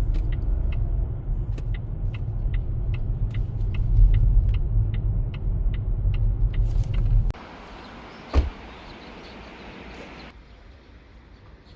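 Inside a moving car: steady low road rumble with a turn signal ticking evenly, about two ticks a second. About seven seconds in, the sound cuts to a much quieter hiss, with a single thump a second later.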